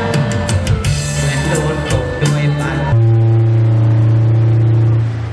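Instrumental ending of a song: a band's drum hits and cymbal strikes over bass notes, then a loud, long-held final chord about three seconds in that stops just before the end.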